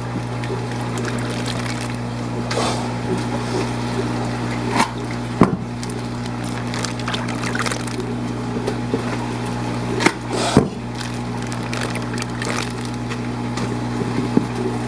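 Steady low hum of fish-room equipment, such as pumps or air blowers, under a background of running water. A few short knocks and clatters from handling the bags and containers come through, the clearest at about 5 s and 10 s.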